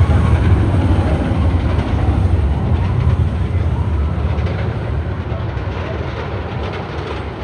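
Roller coaster train rumbling along its track in a loud, steady low roar that eases slightly near the end.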